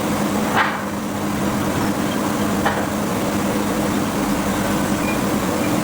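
Steady hum of forge-shop machinery with two sharp metallic knocks about two seconds apart, the first the louder.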